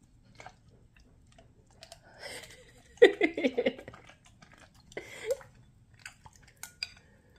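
A large dog chewing and smacking his food, with small wet clicks. A short voiced sound with a wavering pitch comes about three seconds in, and a brief rising one at about five seconds.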